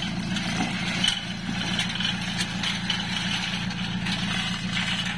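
Truck engine idling steadily, an even low hum.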